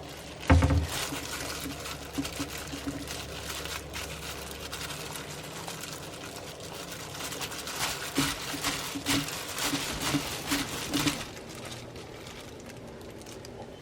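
Wet kitchen food-preparation sounds: a sharp knock about half a second in, then a trickling, pattering handling noise with small clicks that gets busier toward the end and stops about eleven seconds in. A low hum runs under the first few seconds.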